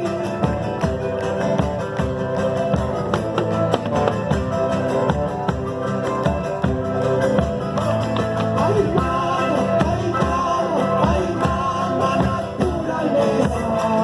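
Live folk music at a steady loudness, an instrumental passage led by guitar over a regular percussion beat.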